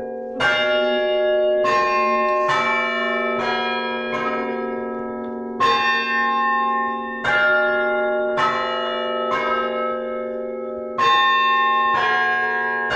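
Church bells rung in turn, one strike roughly every second, each bell's tone ringing on under the next, with a slightly longer pause now and then in the sequence.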